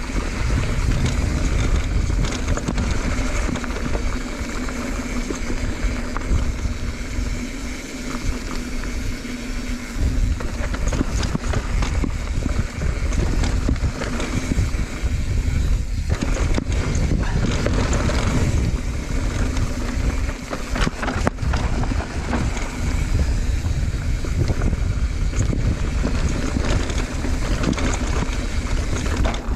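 Wind buffeting the microphone and tyres rumbling over rough dirt during a fast downhill ride, with a few sharp knocks from bumps near the middle.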